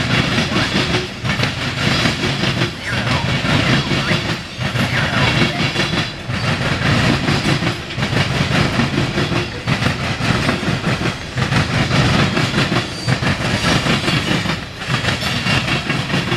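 CSX grain train's covered hopper cars rolling past on the rails, a steady rumble and clatter of wheels that swells and dips about every one and a half to two seconds.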